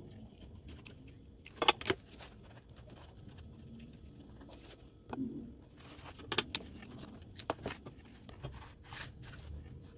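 Hands handling and pressing a fabric-covered cardboard basket on a tabletop: scattered sharp clicks and taps with light scraping and rustling, in a pair a couple of seconds in and a denser cluster past the middle.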